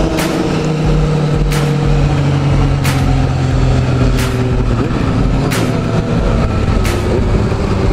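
Yamaha FZ-09's 847 cc three-cylinder engine running steadily at cruising speed under wind rush on a helmet camera, its pitch easing slightly partway through. Short sharp ticks recur about every second and a half.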